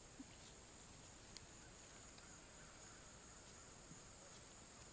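Near silence with a faint, steady high-pitched drone of insects and a couple of soft ticks.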